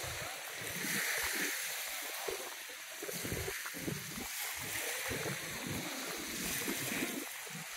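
Small waves splashing and lapping at a beach shoreline, with indistinct voices of people nearby.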